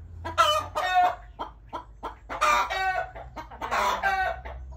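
Chickens calling: a run of loud, pitched calls, each under a second long and about a second apart.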